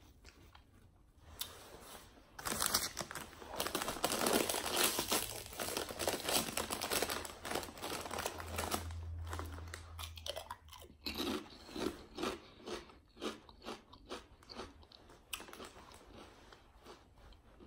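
Close-up crunching and chewing of salt and vinegar potato chips: a dense run of crunches for several seconds, then slowing to separate crunches that fade out.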